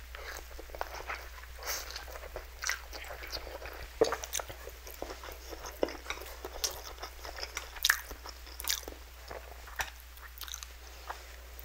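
Close-miked chewing of a mouthful of spicy instant noodles: irregular wet mouth smacks and bites, the loudest at about four and eight seconds in.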